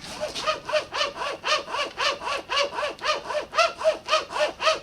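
Folding pocket chainsaw pulled back and forth through a tree trunk by two people, its chain grating through the wood in rapid, even strokes, roughly five a second, each stroke a rising-and-falling rasp.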